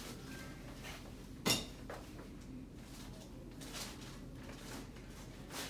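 A chiropractic thrust on the back of a patient lying face down: one sharp crack about a second and a half in, followed by a few faint clicks.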